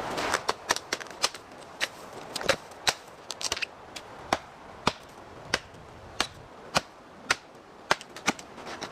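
A steady series of sharp knocks, roughly two a second and a little uneven, like a tool striking repeatedly in building work.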